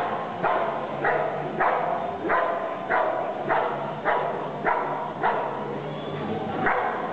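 A dog barking at the decoy, about two sharp barks a second, with a short pause before a final bark near the end.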